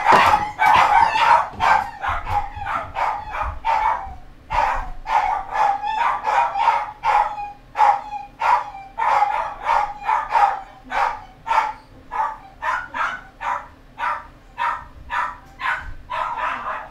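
Dogs barking like crazy: a continuous run of sharp barks at about two to three a second, with a short break about four seconds in.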